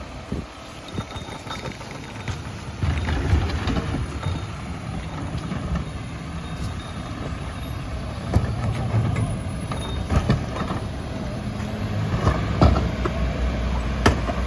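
Mack LEU rear-loader garbage truck's engine running, getting louder about three seconds in. Scattered knocks and bangs from plastic wheeled trash carts being rolled and handled at the hopper.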